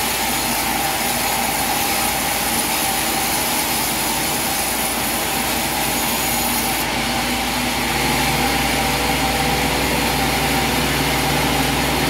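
Band sawmill running steadily, a machine hum with a whirring band saw blade. About seven seconds in, the sound gets lower and slightly louder.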